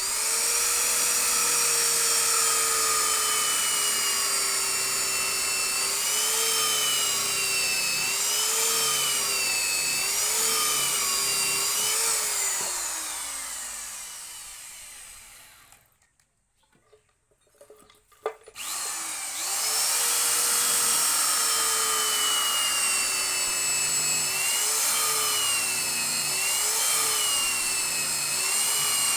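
Electric power tool motor running on wood, its whine dipping in pitch again and again as it bites in under load. About twelve seconds in it winds down to a stop. After a click it starts up again and runs with the same repeated dips.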